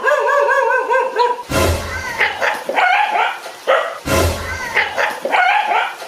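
A dog barking and yipping excitedly in quick runs of short, high calls.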